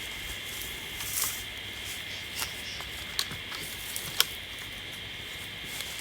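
Steady high-pitched insect chorus, with scattered sharp clicks and light rustles from garden clippings and twigs being handled, the sharpest click about four seconds in.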